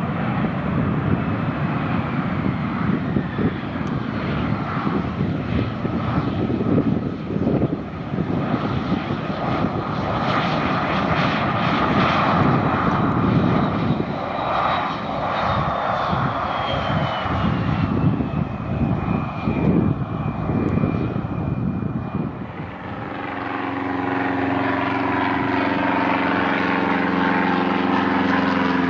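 Endeavor Air regional jet's engines running, a dense rumble with a thin turbine whine that slides down in pitch partway through. Near the end the sound changes to a small propeller plane's engine running with a steady, even hum.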